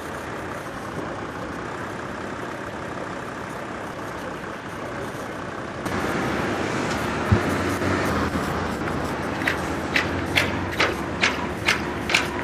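Steady rumble, then from about halfway the louder steady hum of fire engines' diesel engines running their pumps. One sharp knock comes soon after, and near the end sharp regular clicks come about twice a second.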